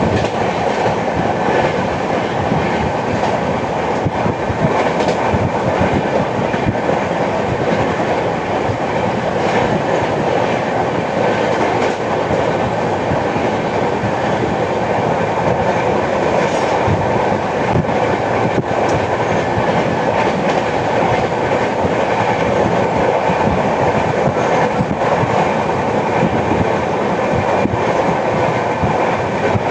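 Express passenger train running steadily at speed, its coach wheels clattering and clicking over the rail joints. The uploader calls it a flat wheel sound.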